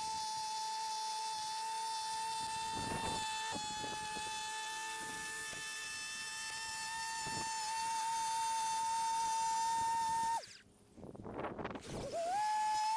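Electric grinder running at speed with a steady high whine, sharpening the blade of an edging shovel. About ten seconds in the motor is cut and its pitch falls away; near the end it spins back up to full speed.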